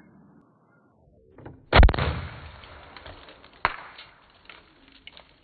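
Pump air rifle firing: one loud, sharp pop a little under two seconds in, followed by rustling handling noise and a single sharp click near four seconds in.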